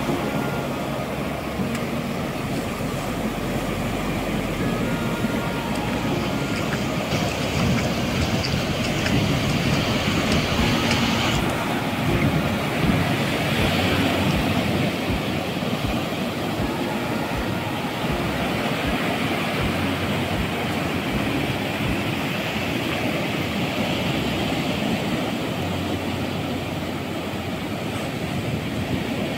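Surf breaking and washing in shallow water, a steady rush of waves with wind rumbling on the microphone.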